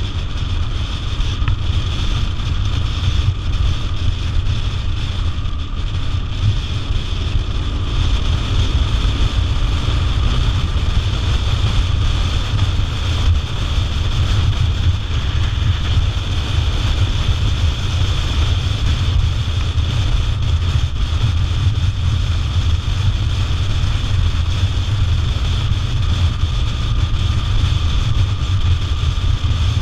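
Motorcycle cruising at steady road speed, picked up by a camera mounted on the bike: a steady low engine and road rumble mixed with wind rushing over the microphone.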